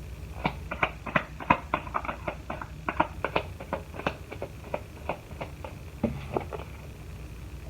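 A run of light, irregular clicks and taps, several a second: tarot cards being handled and laid on a table.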